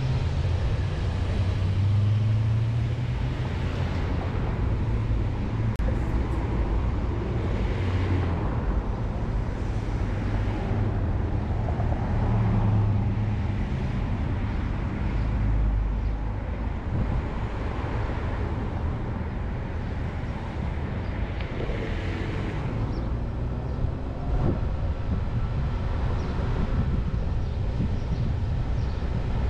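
A car driving on a town street, heard from the car: a steady low engine hum under continuous tyre and road noise.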